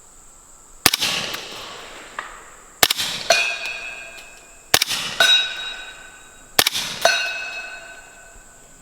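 Four suppressed shots from a Honey Badger SD short-barrelled 300 Blackout with its integral suppressor, firing Fiocchi subsonic rounds about two seconds apart. After each of the last three shots, a steel target is hit about half a second later and rings.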